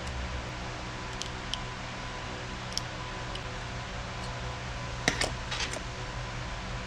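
Steady fan-like hum and hiss with a few light clicks and ticks scattered through, the loudest a short cluster of clicks about five seconds in.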